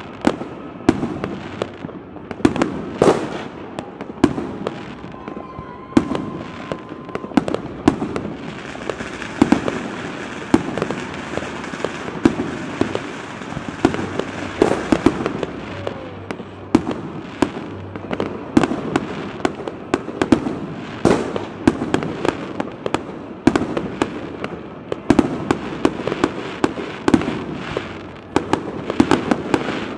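Aerial fireworks display: a dense, unbroken run of shell bursts and bangs, often several a second.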